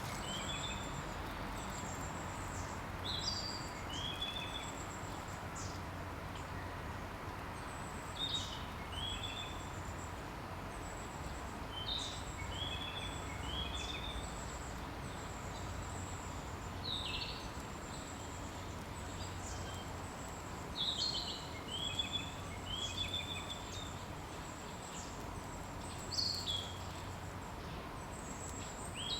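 Wild bird singing a short high-pitched phrase of sweeping and hooked notes, repeated about every four or five seconds over a steady outdoor background hiss.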